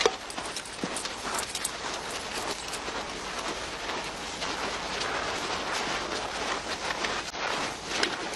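Footsteps of a large crowd marching through snow: a dense, irregular crunching and shuffling of many feet.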